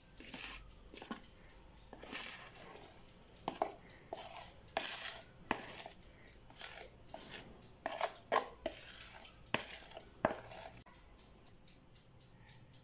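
A metal utensil scraping cake batter out of a plastic mixing bowl into a baking tray: irregular scrapes and light taps against the bowl, stopping about eleven seconds in.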